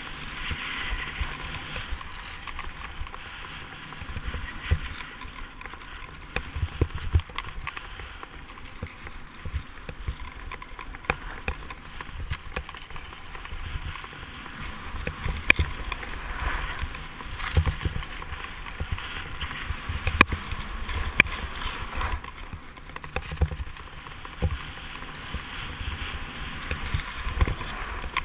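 Mono-ski (sit-ski) running over packed snow: a steady scraping rush of the ski on the snow, with irregular knocks and clatters and low rumbling surges as it turns and the outriggers touch down.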